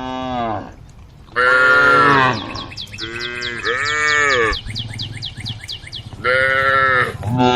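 Cattle mooing: about six short calls, one after another, several of them fairly high-pitched. A rapid series of high chirps runs over the middle of the calls.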